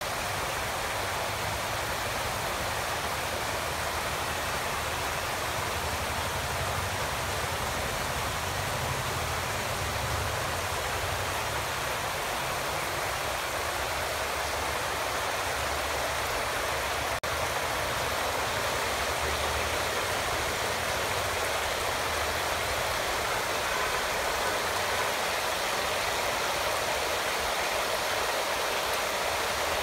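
Rain water curtain running: a steady sheet of water droplets falling into a swimming pool, a continuous even splashing hiss.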